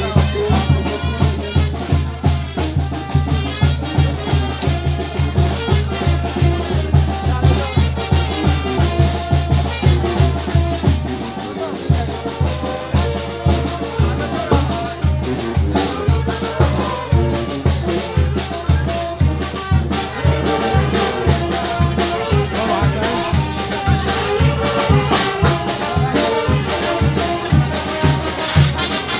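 Brass band music, Oaxacan banda style: trumpets and trombones play the tune over a steady pulsing low bass beat, which breaks off briefly about a third of the way through.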